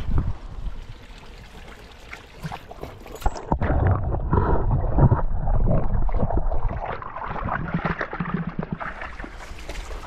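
Muffled gurgling and churning of stream water heard from a camera held under the surface, with the high end cut off, beginning about three seconds in and loudest in the middle. Near the end the sound opens up again into splashing as a dog wades in a muddy puddle.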